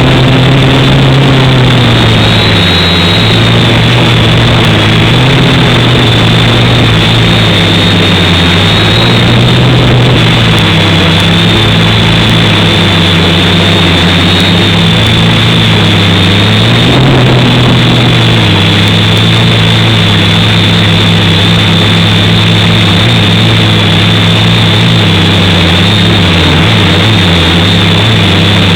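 Quadcopter's electric motors and propellers running steadily: a loud low hum whose pitch dips and rises every few seconds, with a thin high whine held throughout.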